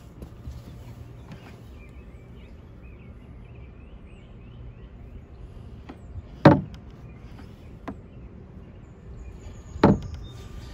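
Small homemade door of rough barn lumber on a wooden box swung shut twice, each time closing against its frame with a sharp wooden knock, the second about three seconds after the first.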